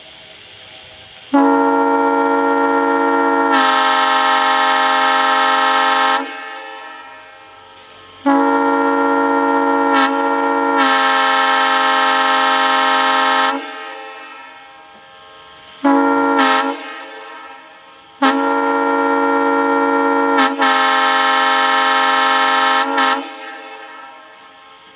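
Multi-chime locomotive air horn sounding a steady chord in the long-long-short-long grade-crossing pattern: two long blasts, a short toot, then a final long blast.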